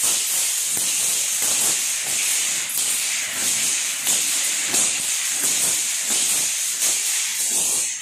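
Surul vaal (flexible coiled-steel sword) being whirled, its blades whooshing through the air in a rapid, even rhythm of about two to three swishes a second, over a steady hiss.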